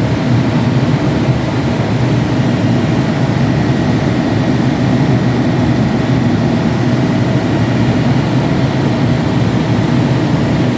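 Cummins QSX15 inline-six diesel engine of a 550 kVA generator set running steadily and loudly at constant speed.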